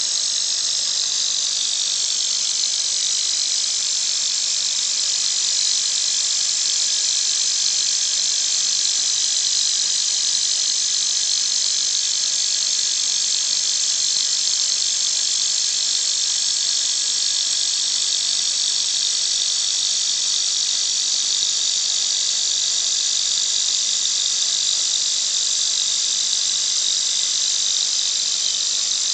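ProtoTRAK milling machine's spindle drive spinning a 6-inch three-jaw chuck with a steady, high-pitched whine of several tones. The pitch settles over the first few seconds, then holds.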